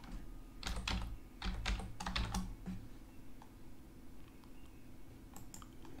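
Keys tapped on a computer keyboard: a quick run of keystrokes in the first three seconds, then a couple more near the end.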